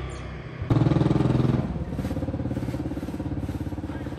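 A small engine jumps sharply in level about two-thirds of a second in and stays loud for about a second, like a rev. It then settles back to a steady, rapidly pulsing run.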